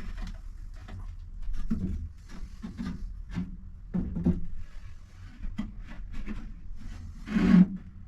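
Wooden boards knocking and scraping as a shelf board is worked into place in a workbench, with a louder thump about seven and a half seconds in.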